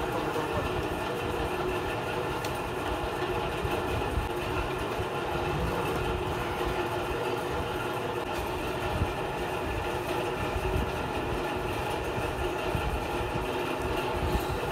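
Steady machine noise: a continuous hum with several steady tones over a low rumble, like an engine running.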